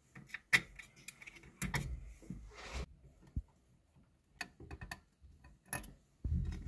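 Allen wrench turning out the small mounting screws on a laser engraver's diode laser module: scattered light metallic clicks and ticks, with a short scraping stretch about two seconds in.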